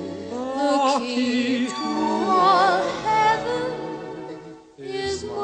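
Background music: a slow, romantic song, a woman singing long held notes with vibrato over soft instrumental backing. Near the end the music dips almost to silence, then comes back.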